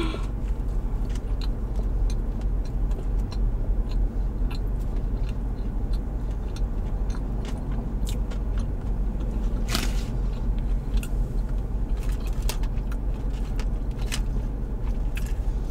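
Close-up chewing of a plant-based cheeseburger, with wet mouth clicks and smacks scattered throughout, one sharper near the middle. A steady low rumble of the car's cabin runs underneath.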